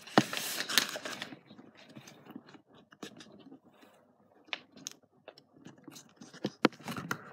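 Sheet of printer paper rustling and crinkling as it is handled and folded. A louder rustle in the first second or so, then quieter scattered crackles and a few sharp taps.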